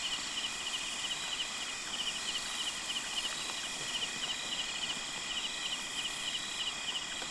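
Night insects calling: crickets chirping in fast, evenly repeated pulses over a steady high-pitched insect drone, with a few faint clicks.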